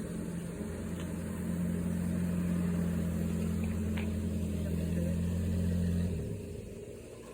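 A steady low motor drone that swells a little about a second and a half in, then cuts off about six seconds in.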